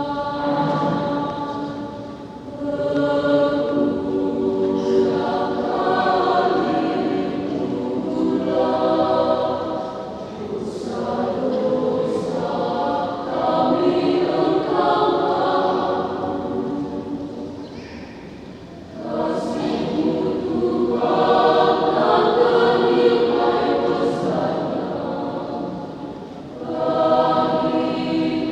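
Mixed school choir singing a sacred song in several-part harmony, in phrases with brief breaths between them.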